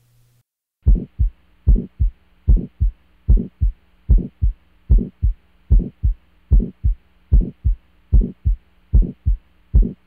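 Auscultated heart sounds from the second right intercostal space: a regular heartbeat, about 75 a minute, with a harsh crescendo-decrescendo systolic murmur, the sign of aortic stenosis. The recording starts about a second in.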